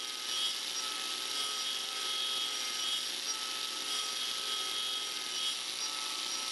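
Angle grinder fitted with a Graff Speedcutter carbide-tooth disc, running at speed and cutting into a square wooden spoke blank on a duplicating lathe. A steady motor whine under a rough cutting hiss as the long carbide teeth chew through the edge grain.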